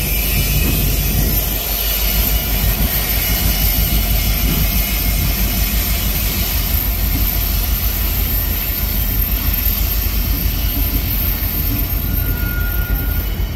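Kansas City Southern diesel freight locomotives running past close by and drawing away down the track: a steady, loud diesel engine roar with rumbling rail noise.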